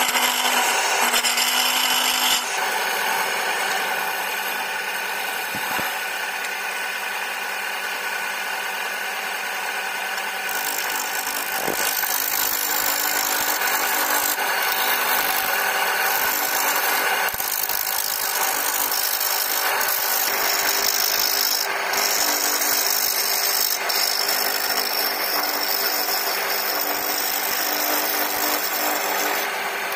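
Electric wood lathe running while a hand-held turning chisel cuts into the spinning wood, hollowing the inside and then shaping the outside. A steady scraping cut over the motor's hum, changing abruptly a few times.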